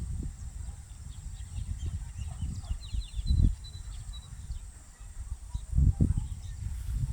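Low, uneven rumble and bumps on the microphone, with a quick run of high chirps and a brief high whistled bird call about three seconds in.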